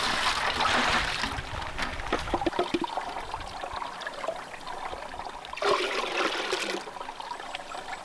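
Water being scooped with a plastic dipper from a hole in stream ice and poured into a plastic bucket. There is a splash at the start and another about six seconds in, with trickling stream water between.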